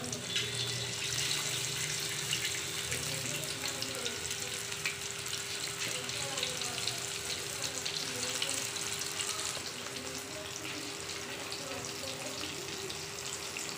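Marinated chicken pieces deep-frying in hot oil in a large kadhai: a steady sizzle thick with small crackles, easing slightly after about ten seconds.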